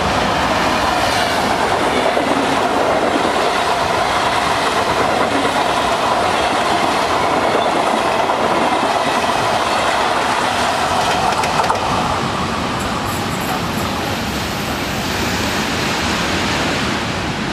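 Regional passenger train, a push-pull set led by its driving trailer, running through the station at speed without stopping: a loud, steady rolling and rattling of wheels on the rails as the coaches pass, easing off a little after about twelve seconds.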